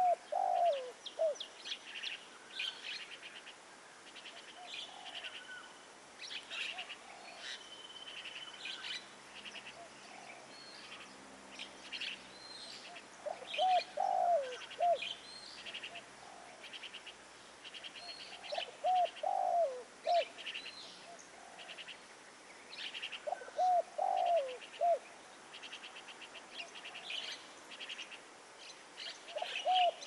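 Spotted dove cooing: a short phrase of a few rising-and-falling notes, heard once at the start and then about every five seconds from the middle on. Small birds chirp and trill steadily around it.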